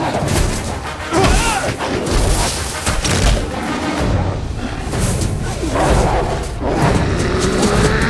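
Film battle soundtrack: music mixed with heavy booms and thuds, and shouting voices.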